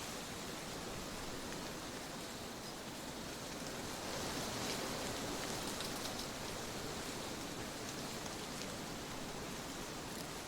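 Trade winds blowing steadily: a constant rush that swells a little about halfway through, with a few faint high ticks.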